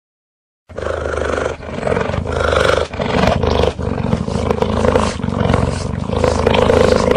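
A cheetah's low, continuous vocalisation that starts about a second in, after a short silence, with brief dips in level every second or so.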